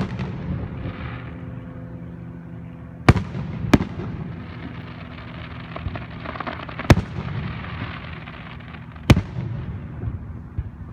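Aerial fireworks going off: four sharp bangs, two close together about three seconds in, one near the middle and one near the end, with crackling between them.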